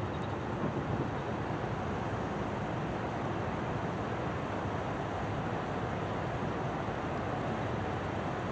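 Steady low rumble mixed with wind noise on the microphone, unchanging throughout, with no distinct events.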